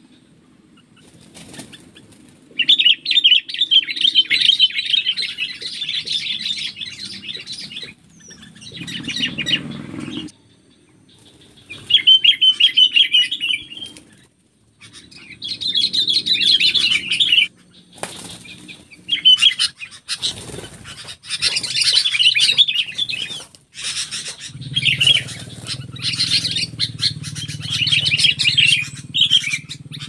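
Sooty-headed bulbuls (kutilang) giving harsh, rapid chattering calls in repeated bursts of a few seconds each, mixed with bouts of wing flapping.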